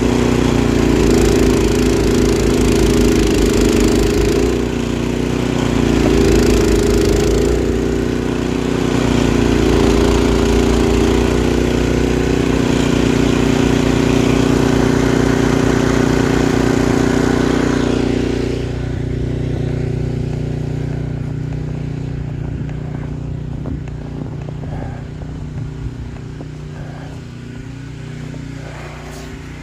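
Gas snowblower engine running steadily with a loud broad hiss on top; about 18 seconds in the hiss drops away and the engine runs on more quietly.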